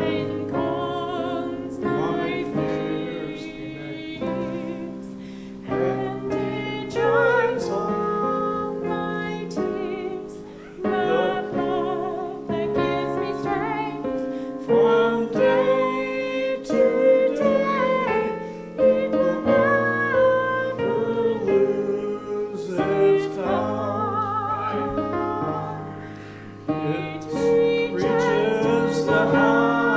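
A song sung by one voice with vibrato, accompanied by piano.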